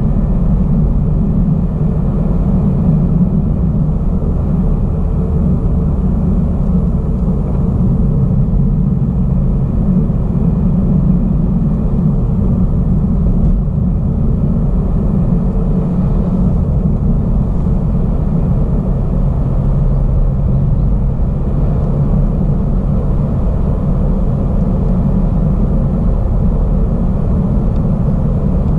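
Car driving at steady speed, heard from inside the cabin: a constant low rumble of tyre road noise and engine.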